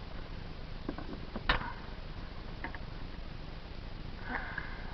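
A few light clicks and knocks over a steady hiss, with one sharper knock about a second and a half in.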